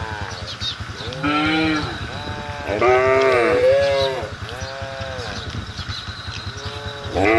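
A herd of livestock calling over and over: a string of short, high, wavering calls about one a second, some overlapping, from several animals at once, over a steady low pulsing hum.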